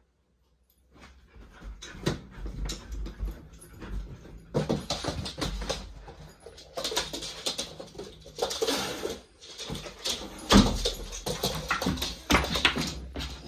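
Alaskan Malamute puppy whimpering and making playful noises, with irregular rustling and knocks of movement, starting about a second in.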